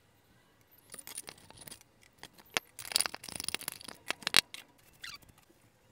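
Metal lamp parts and the enamelled metal shade of an old industrial lamp being handled on a wooden workbench: a run of light clicks and scrapes, densest about three seconds in, with one sharp click a little after four seconds.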